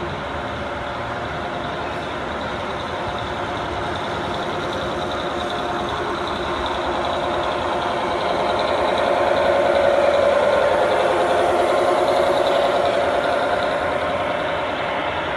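O scale model diesel locomotives pulling a taconite ore train, their onboard sound units playing a steady diesel engine sound over the rumble of wheels rolling on the track. It grows louder as the locomotives pass, peaking a little past the middle, then settles as the ore cars roll by.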